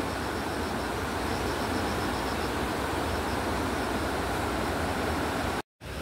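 Steady rush of running water, with faint, quickly repeated high chirps in the first half.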